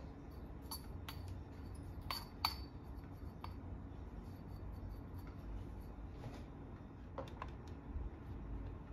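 Scattered light clinks and taps of glass and metal coffee-brewing gear being handled and set down, the loudest about two and a half seconds in.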